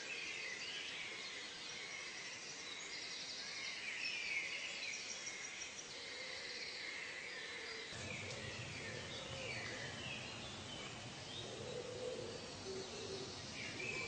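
Natural ambience of many birds chirping and calling at once, short repeated notes and gliding calls over a steady background hiss. About eight seconds in, a low noise comes in beneath them.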